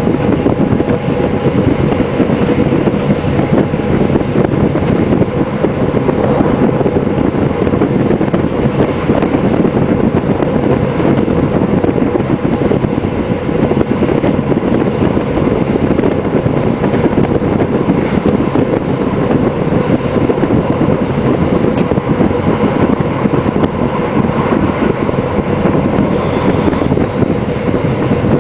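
DB class 628 diesel multiple unit running steadily along the line, heard from the driver's cab: a continuous mix of engine and wheel-on-rail running noise with a faint steady hum.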